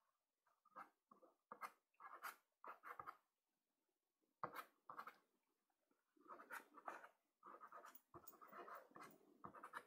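Soft pastel stick scraping across Pastelmat paper in short, irregular strokes, faint, with a pause of about a second a third of the way in and denser strokes near the end.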